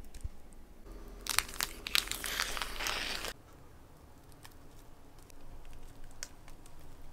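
Soft cheesecake filling being scraped from a bowl into a paper-lined cake tin, with a crinkling, clicky noise for about two seconds that cuts off suddenly. After that only a few faint clicks.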